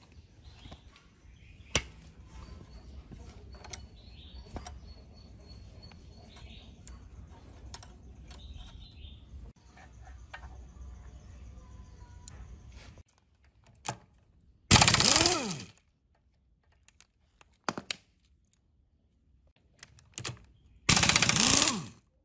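Socket ratchet wrench clicking in two fast runs of about a second each, running down a nut on the engine's timing gears. Before that, quieter handling of metal parts with a few scattered clicks.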